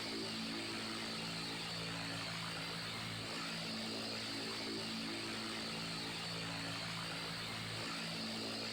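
Electric fan running steadily: an even rush of moving air over a low motor hum that swells and fades every few seconds.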